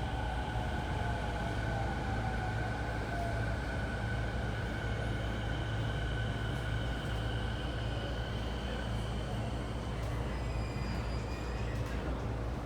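Toei 10-300 series train running, heard from inside the car: a steady rumble with a thin, steady whine from the traction motors.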